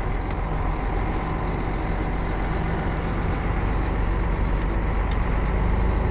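A heavy vehicle engine running steadily at low speed, with an even low hum that barely changes.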